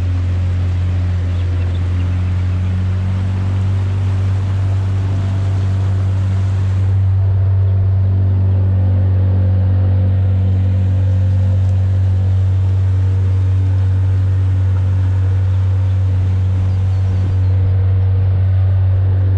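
Boat's outboard motor running steadily underway, a constant low drone.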